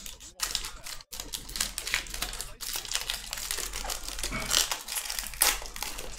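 Foil wrappers of Panini Illusions trading-card packs crinkling and tearing as they are ripped open and handled. The crackling and clicking is dense, with two short breaks in the first second or so.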